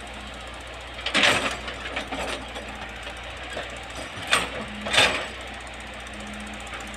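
Hitachi hydraulic excavator running steadily while clearing brush, with four sharp cracks or clanks. The loudest come about four and five seconds in.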